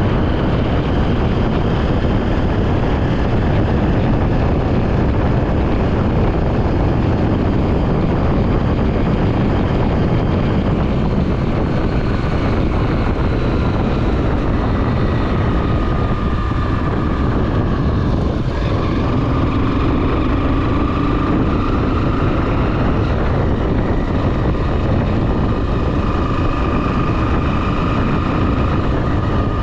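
Honda XR 250 Tornado's single-cylinder four-stroke engine running under way, over a heavy rush of wind on the microphone. Its note rises and falls as the throttle changes.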